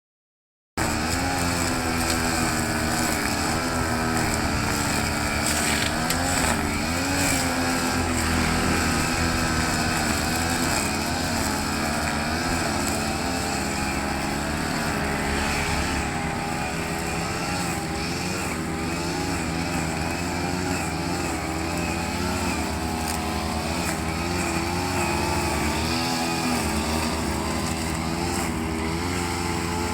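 Petrol grass-cutting machine (brush cutter) engine running steadily, its pitch wavering slightly up and down.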